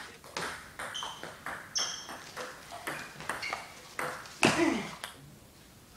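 Table tennis balls struck by paddles and bouncing on the tables: an irregular run of sharp, ringing clicks from rallies. A short voice call cuts in about four and a half seconds in.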